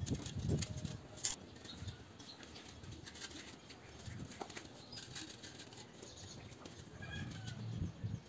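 Clay bricks being handled and set on one another while a rocket stove is stacked up: irregular dull knocks and scrapes of brick on brick, with a few sharper clicks, strongest in the first second.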